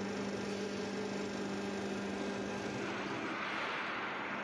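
Steady machinery drone of a rail rolling mill, the hot-rolling line with its roller-table drives running. A low hum fades about three seconds in as a hissing rush grows.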